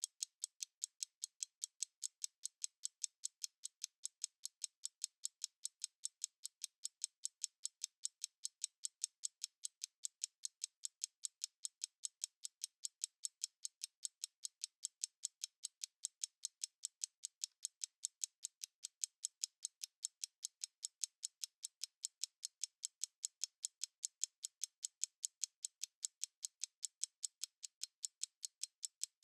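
Stopwatch ticking: a fast, perfectly even run of light, high-pitched ticks, several a second, at a constant level.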